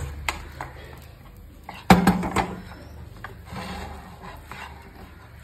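A cooking utensil knocking and scraping against a pan while a thick potato-and-vegetable mixture is stirred, with scattered clicks and one loud clank about two seconds in.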